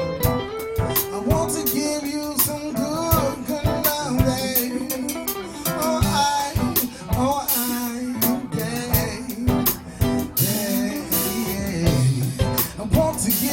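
Live acoustic soul-blues band music: acoustic guitar and a drum kit keeping a steady beat, with some singing over it.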